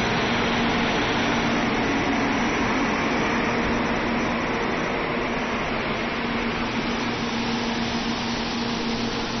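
N700 series Shinkansen train moving slowly alongside the platform: a steady rushing noise with a low steady hum, easing off slightly after about four seconds.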